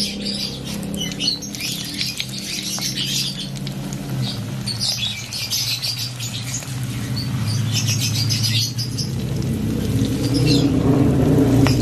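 Flour-battered shrimp deep-frying in hot oil in a wok, the oil sizzling and crackling in uneven spells. Steady low tones run underneath, growing louder near the end.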